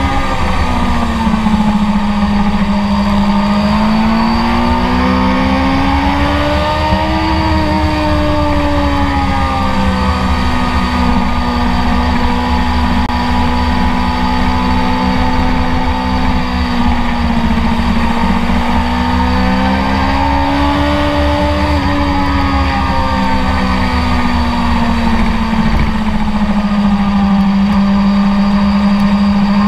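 BMW S1000RR's inline-four engine running hard at high revs on track. The note dips early, then rises and eases off twice as the throttle is worked through the corners, with no break for a gear change.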